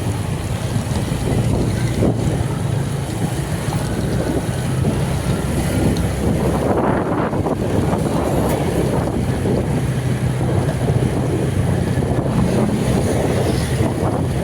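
Steady low vehicle engine and road noise with wind rushing over the microphone.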